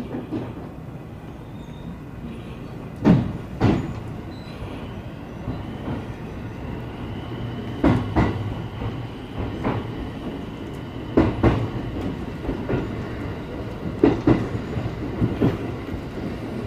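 JR 221 series electric train running, heard from the driver's cab: a steady low hum, with the wheels clacking over rail joints in pairs of sharp knocks about every three seconds.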